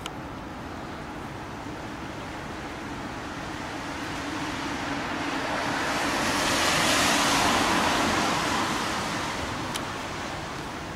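A car passing on a wet road: its tyre hiss swells slowly, peaks about seven seconds in, then fades away over a steady background hiss.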